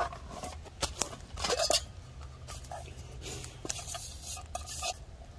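Canvas pouch rustling and a metal camp cup or pot clinking and scraping as it is pulled out and handled, with a few sharp clicks near the start and a longer stretch of rustling in the second half.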